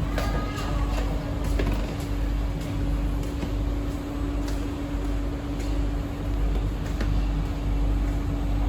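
Inside a C151B MRT train running on the track: a low rumble with a steady hum and scattered clicks. A brief squeal comes just after the start.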